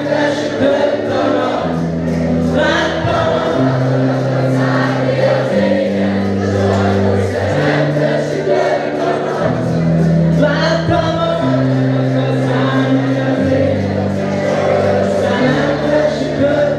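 A band playing live on electric guitars, bass guitar and drums: a bass line stepping from note to note about once a second under steady drum hits and guitars.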